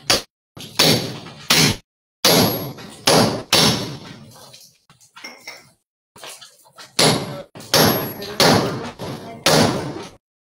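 Hammer blows against a thick masonry wall being broken open: a run of hard, ringing strikes about one to two a second, with a lull in the middle before a second run near the end.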